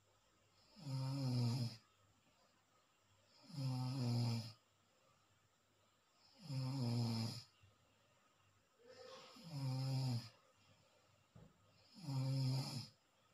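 Deep, steady snoring of someone fast asleep: five snores, each about a second long and falling slightly in pitch, one every two and a half to three seconds, with quiet breaths in between.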